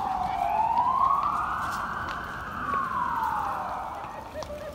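Emergency vehicle siren wailing in a slow up-and-down glide: falling, rising over about two seconds, then falling again before it fades out near the end.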